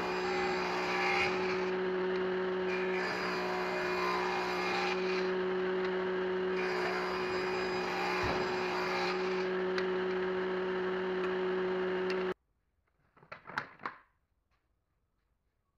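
Table saw on a combination woodworking machine running with a steady electric-motor hum while its blade rips a pine board. The cutting noise comes and goes in passes of a few seconds. The machine sound cuts off abruptly about 12 seconds in, followed by a few faint light knocks of wooden sticks.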